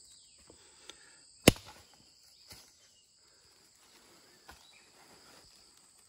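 Hands handling woody Brazil nut pods on the forest floor: one sharp knock about a second and a half in, then a few faint taps and rustles. A steady high drone of rainforest insects runs underneath.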